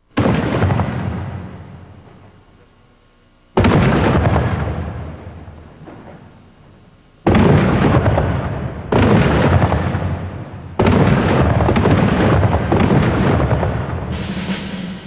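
Five heavy booms, each starting suddenly and dying away over a few seconds, the later ones coming closer together. A low steady note comes in near the end.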